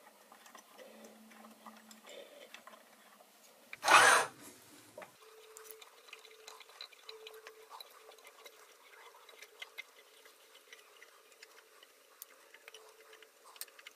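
Faint scattered ticks and clicks of a small hand tap being turned in a toolmaker's clamp to cut a thread in a die blank, with one louder knock about four seconds in.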